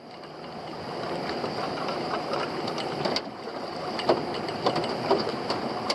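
Small fishing boat's engine running steadily, fading up after a cut, with scattered knocks and clatter from crab pots being handled on deck.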